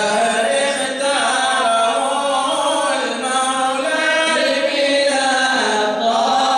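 Men's voices chanting mawlid praise poetry together, without instruments, in long held, gliding notes.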